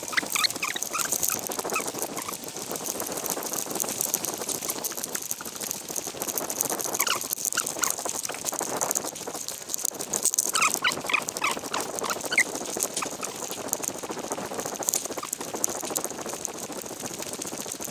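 Footsteps and rustling as someone walks a woodland trail through undergrowth, with birds chirping in short bursts near the start, about seven seconds in and again about eleven seconds in.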